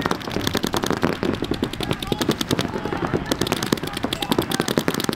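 Several paintball markers firing rapid streams of shots at once, a fast, even rattle of sharp pops that keeps going without a break.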